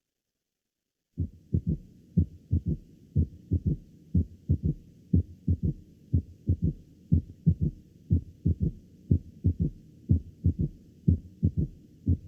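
Recorded heart auscultation of a third heart sound (S3) gallop: low thuds repeating in a galloping 'Tum-ta-ta' rhythm, the soft low-pitched third sound falling just after the second heart sound in early diastole. The beats start about a second in.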